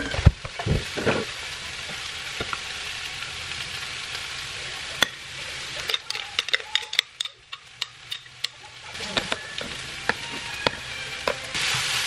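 Food frying in a pan: a steady sizzle with scattered sharp pops and clicks, thickest a little past the middle, and a few dull knocks in the first second.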